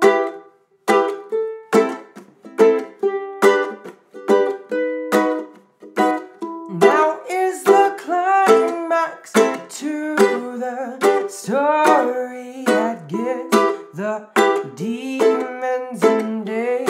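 Ukulele played in a pluck-then-strum pattern, a single string picked before each strummed chord, about one stroke every 0.7 s. From about seven seconds in, a voice hums along over the chords.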